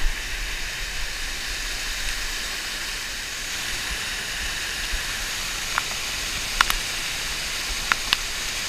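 Waterfall water rushing steadily as white water, with a few faint sharp clicks in the second half.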